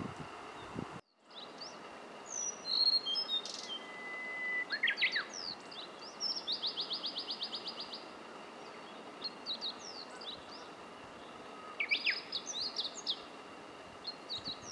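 Blue-and-white flycatcher singing: separate phrases of clear, high whistled notes a few seconds apart. One phrase ends in a fast trill of about a dozen notes, roughly eight a second, near the middle.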